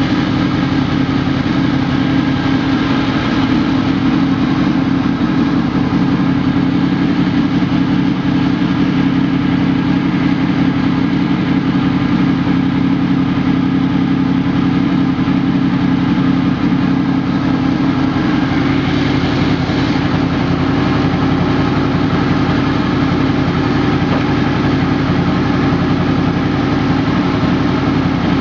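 Honda VFR800 Interceptor's V4 engine idling steadily, with no revving.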